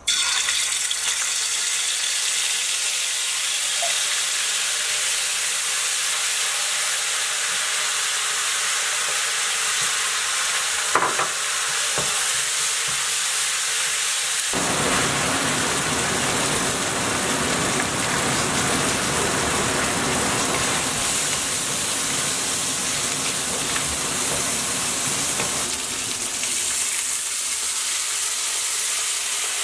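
Chili paste sizzling and frying in hot oil in a wok while it is stirred with a wooden spatula. The sizzle starts suddenly as the paste goes in. There is a single knock about 11 seconds in, and about halfway through the sizzle turns fuller.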